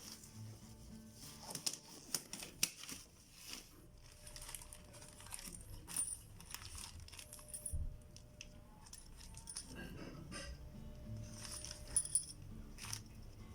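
Sharp, irregular metallic clicks and clinks of steering-rack parts and tools being handled during a rack-and-pinion teardown, over faint background music.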